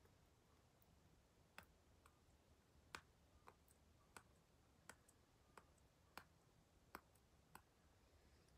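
About ten faint, sharp clicks at irregular intervals from fingers and fingernails tapping at and handling a smartphone in its case.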